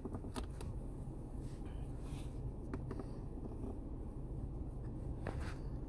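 Faint scratching and a few light clicks of small plastic parts being handled, over a steady low hum.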